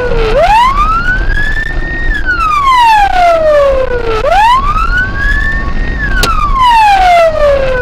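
Police car siren on a wail, its pitch climbing and then sliding down over about four seconds a cycle, two cycles in all, over steady road noise. A single sharp click sounds about six seconds in.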